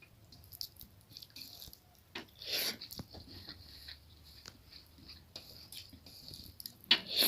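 Eating and food-handling sounds at a meal of dal bhat: scattered small clicks and soft rustles, with a louder noisy sound about two and a half seconds in and again near the end.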